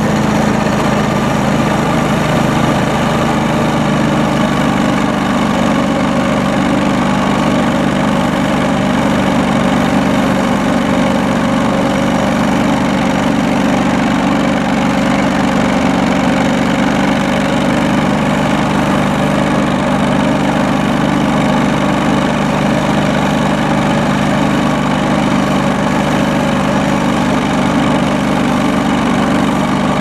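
John Deere 445 garden tractor's liquid-cooled V-twin engine running steadily under load, driving a 52-inch single-stage snowblower that is throwing snow.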